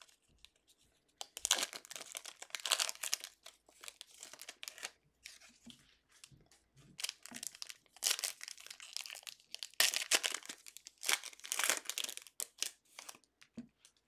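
Foil trading-card pack wrappers crinkling and tearing as they are pulled open and handled, in several separate bursts with short pauses between.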